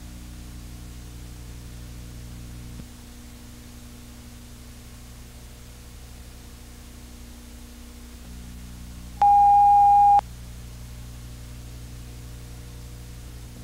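Steady electrical hum and hiss from an old videotape soundtrack, broken once by a loud electronic beep: a single steady tone lasting about a second, a bit over two-thirds of the way through.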